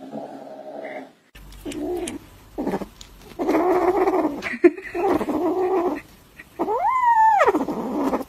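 Cats growling over food held in the mouth: a low growl that breaks off about a second in, then a kitten's long wavering growls and a rising and falling yowl near the end.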